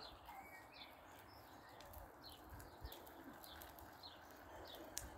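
Faint birdsong: a small bird repeating short, high chirps about once or twice a second, with one sharp click near the end.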